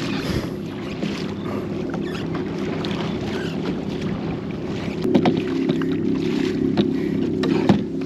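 Steady low motor drone on open water, with wind and water noise around it; the drone grows louder about five seconds in, and a few sharp knocks come just after that and again near the end.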